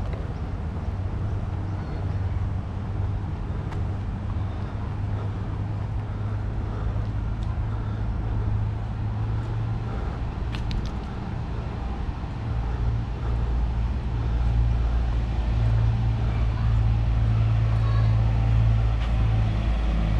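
A car engine idling: a steady low hum over light street noise, growing louder over the last several seconds.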